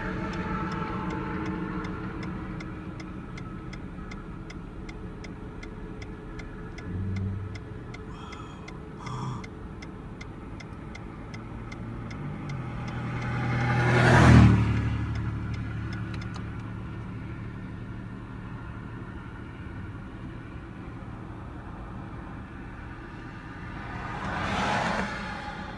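Road vehicles passing on a rural road, each a swelling and fading rush of tyre and engine noise. The loudest passes about fourteen seconds in and a quieter one near the end, over a steady low hum. A faint regular ticking runs through the first half.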